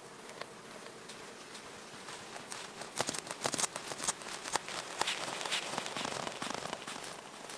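Dry twigs and forest litter crunching and snapping underfoot: a quick run of sharp cracks about three seconds in, then softer rustling.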